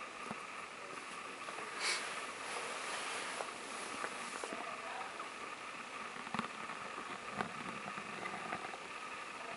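Steady faint hiss of room tone, with a few soft clicks and a short breathy rush about two seconds in.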